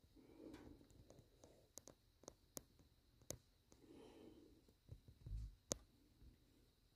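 Faint, scattered clicks and soft rustling of a raccoon rummaging in a plastic bag, with a dull thump about five seconds in.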